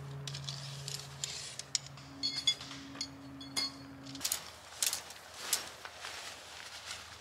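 A tent being unpacked and spread out by hand: nylon fabric rustling with light metallic clinks, thickest about two to three seconds in. A low steady hum runs underneath and stops about four seconds in.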